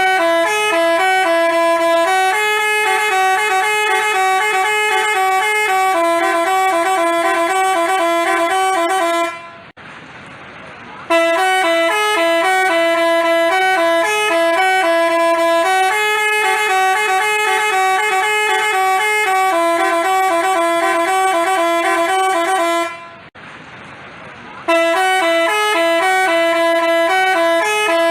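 Basuri telolet bus horn playing a melody of stepping multi-tone notes. It breaks off twice, for about two seconds each time, before starting the tune again.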